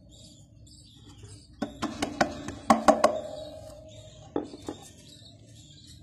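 Budgerigars chirping, with a run of sharp knocks and clicks about two to three seconds in and two more near the end, from the wooden nest box being handled.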